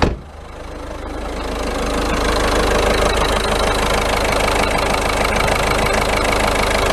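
A sharp click, then a Ford Fiesta 1.6 TDCi diesel engine idling. The engine grows louder over the first couple of seconds and then runs steadily, shaking a little, just after it has been brought back from a no-start fault.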